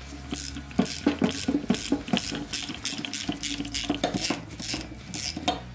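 Small hand ratchet with a Torx bit clicking repeatedly, about three clicks a second, as it turns the electronic parking brake shaft of a rear brake caliper to wind the piston out.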